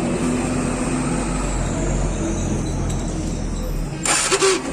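TVS Star Sport motorcycle engine being started and run on its electric self-starter, with an abnormal noise from the self-start motor that the mechanic puts down to a fault inside the starter motor. A steady low running sound stops about four seconds in, followed by a brief burst of hiss.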